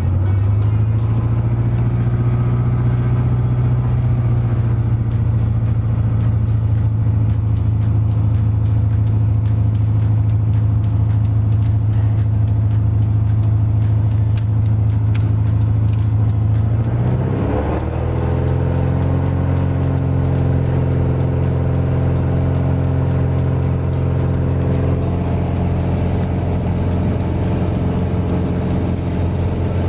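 Single piston engine and propeller of a Piper Arrow light aircraft running steadily, heard from inside the cockpit. Its pitch dips and shifts briefly about seventeen seconds in, then holds steady again.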